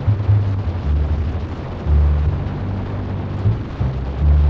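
Harley-Davidson V-twin motorcycle running at road speed on the open road, its low rumble mixed with wind noise on the microphone that surges in low gusts.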